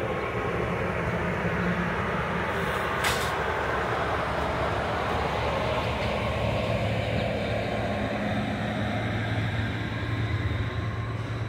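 Amtrak Pacific Surfliner passenger train passing: a steady rumble of steel wheels on the rails with a single sharp clack about three seconds in. About halfway through, the diesel locomotive pushing at the rear goes by and a deeper, steady engine hum comes in.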